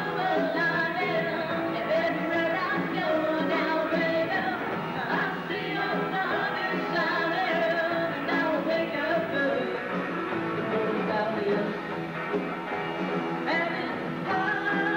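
Live rock band playing, with electric guitar, bass and drums and a woman singing.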